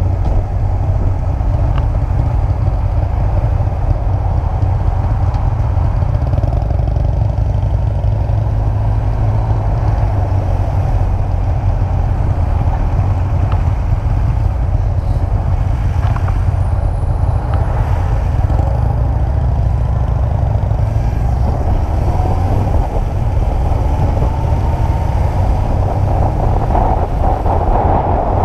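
Wind rushing over the microphone of a Honda CBF600 motorcycle on the move, a heavy, steady rumble, with the bike's inline-four engine running beneath it.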